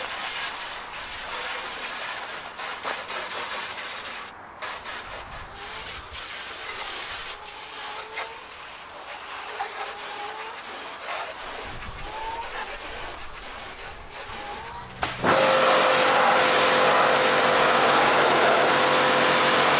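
A low hiss of light spraying for about fifteen seconds. Then a pressure washer cuts in suddenly: its pump motor runs with a steady hum-whine under the loud hiss of the high-pressure jet hitting the van's bodywork.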